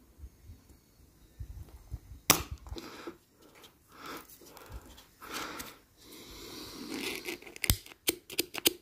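Spring-loaded solder sucker (desoldering pump) firing with one sharp, loud snap a little over two seconds in, pulling molten excess solder off a soldered joint. Handling noises follow, then a quick run of sharp clicks near the end.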